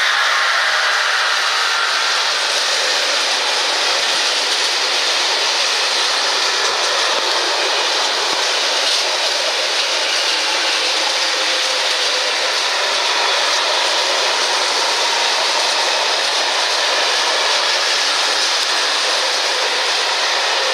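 Long freight train of open box wagons rolling past at speed: a loud, steady rush of steel wheels on rail. The second of its two BB 75000 diesel locomotives is going by at the start, where the sound is at its brightest.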